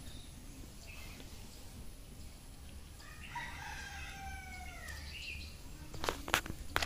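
A rooster crowing faintly once, a single drawn-out call about three seconds in that falls in pitch as it ends. Near the end come a few light clicks as chili pods are picked from the plants.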